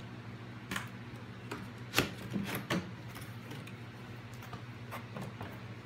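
A cardboard box being opened by hand: a string of sharp cardboard crackles and scrapes as the lid flaps are pulled, the loudest about two seconds in and a few more smaller ones near the end.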